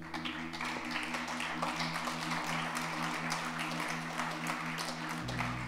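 Congregation applauding, a dense run of many hand claps, over a held musical chord that keeps sounding underneath.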